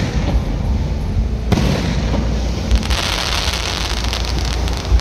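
Aerial fireworks: a shell bursts with a sharp bang about a second and a half in, followed by a long dense crackling of the burst's sparks.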